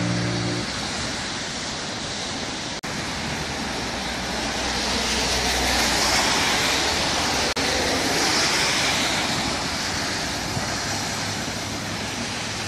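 Steady hiss of rain and traffic on a wet highway, swelling for a few seconds in the middle.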